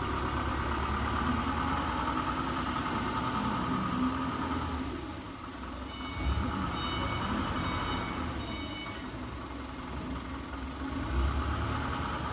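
Steady factory machinery noise with a low rumble. From about six seconds in, a run of short electronic beeps, about two a second, lasts some three seconds.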